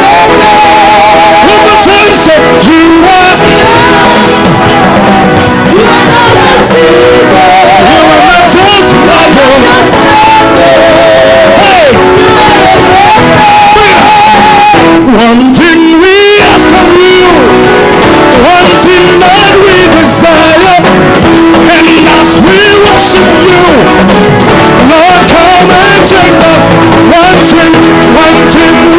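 Live gospel praise music: a band playing with voices singing over it, loud throughout.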